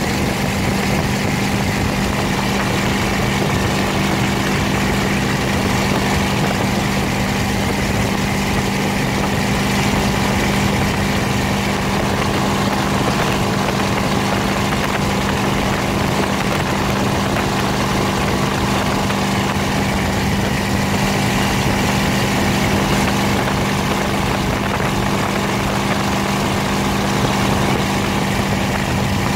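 Tow boat's engine running steadily at speed, a constant drone with a strong low hum, over the rush of water and spray.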